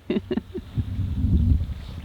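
Horses close at hand: a few quick short sounds at the start, then a low rumbling breath lasting about a second.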